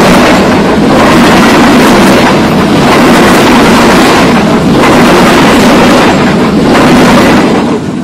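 Diesel-hauled passenger train passing the microphone at very close range: loud, steady wheel-on-rail rumble and clatter with a clack about once a second, starting to fade near the end as the last carriage goes by.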